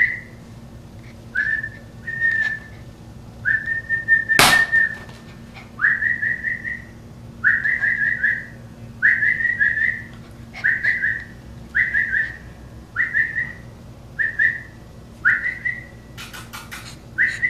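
Chow puppy whining: about a dozen short, high-pitched, mostly rising whines, roughly one every second and a half. A sharp knock sounds about four and a half seconds in, and a few light clicks come near the end.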